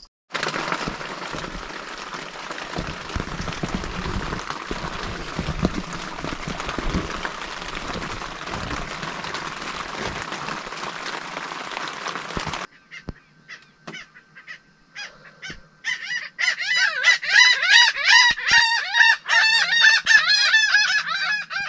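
Steady rushing noise of wind and rain on a tent, with low thumps. It cuts off suddenly, and a few seconds later a bird starts loud, rapid, repeated calls, waking the camp at dawn.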